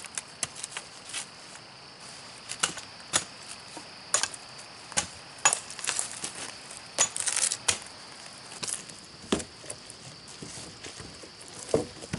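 Hatchet chopping the small branch stubs off a standing pine pole: a string of sharp, irregular chops, about one or two a second, with a quick flurry of short cuts about seven seconds in.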